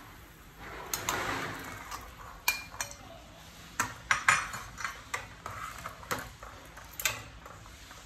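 A metal ladle stirring soup in a steel pot, clinking sharply against the pot about ten times. About a second in there is a watery splash as the pieces of chicken go into the broth.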